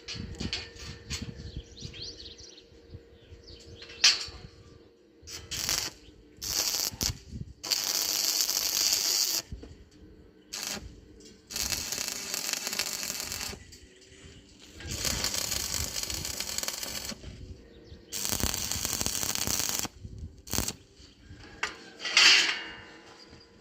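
Metalworking on iron bar: several bursts of harsh hissing noise, each a second or two long, with sharp metal knocks between them, two of them loud.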